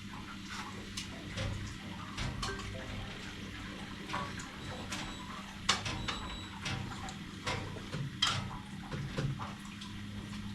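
Irregular light clicks and taps, a few sharper ones near the middle and about eight seconds in, over a steady low hum.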